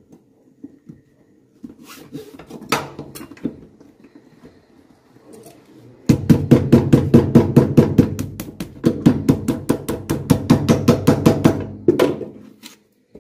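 Cobbler's hammer striking a newly glued sole on a shoe held on a metal last, bedding the sole down onto the shoe. A few scattered knocks and handling sounds come first. Then, about six seconds in, comes a fast, even run of blows, about six a second for some six seconds, with a short break midway.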